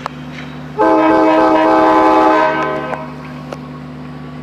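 Diesel locomotive air horn, one long blast of about two seconds, several notes sounding together as a chord. It starts abruptly and then fades, over a steady low hum.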